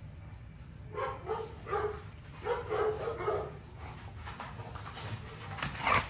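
American bully dogs barking and yipping: a run of short calls from about a second in to three and a half seconds, then a louder, sharper one just before the end.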